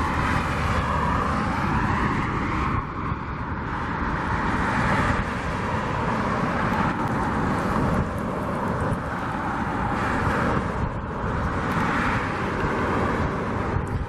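Wind rumbling on the microphone, with road traffic passing by in slow swells.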